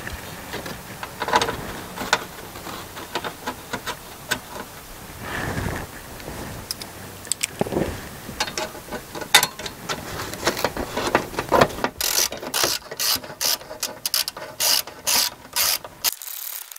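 Small metal bracket and loose wires rattling and clicking as they are fitted up against the van's roof, ending in a run of sharp clicks at about three a second.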